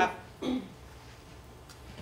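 Quiet room tone in a small hall, with the tail of a man's spoken word at the start, a short voiced sound from him about half a second in, and a faint click near the end.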